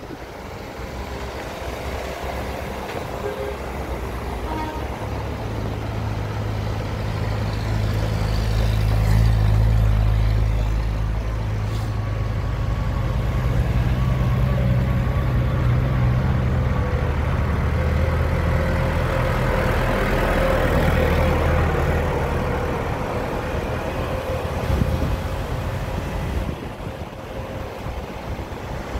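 Cars and vans in a slow procession driving past over a wet cobbled lane, engines running. The engine hum builds a few seconds in, is loudest about a third of the way through and again past the middle, then eases near the end.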